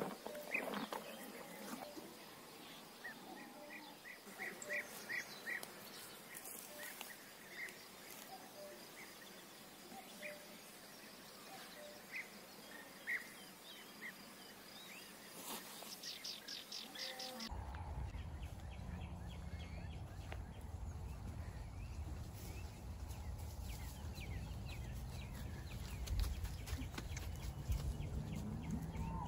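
Small birds chirping in short calls, with a quick trill near the middle, over a quiet outdoor background. After about 17 seconds a steady low rumble of wind on the microphone takes over.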